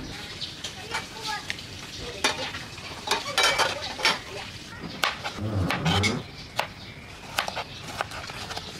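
Kitchen sounds: clinks and knocks of a stainless steel pot and its glass lid, then a knife slicing cucumber and tapping the cutting board near the end.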